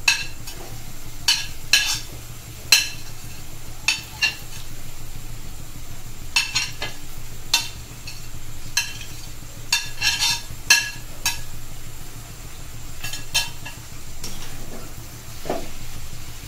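A steel slotted spoon clinking and scraping against a plate and a metal kadai as chopped boiled eggs are scooped in and stirred into frying masala, with a faint sizzle underneath. The sharp clinks come irregularly, bunched most closely about ten seconds in.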